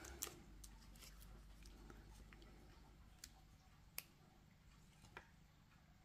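Near silence, broken by a few faint, sharp clicks and light handling noises from a plastic epoxy syringe and its torn packaging being worked in the hands. The clearest clicks come about three, four and five seconds in.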